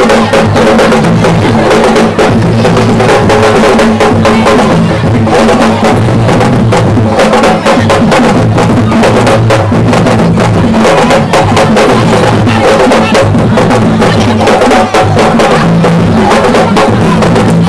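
Loud music driven by drums and percussion: a dense, steady run of drum strokes over a deep bass line.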